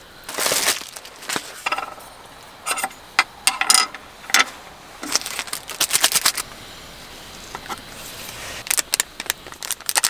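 Scattered light clicks, taps and rustles of small objects being handled on a wooden camp table, with a run of paper crinkling near the end as a paper sachet of dog medicine powder is torn open.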